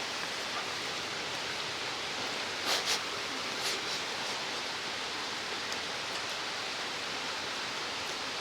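Steady rushing of a mountain stream, with two short taps a little under three seconds in and a fainter one about a second later.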